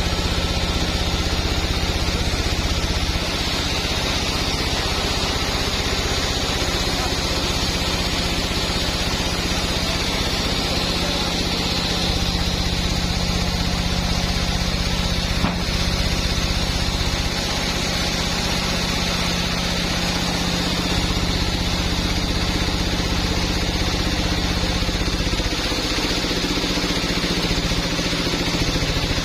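Sawmill machinery running steadily: a motor's low drone with a constant higher whine over it, and one brief click about halfway through.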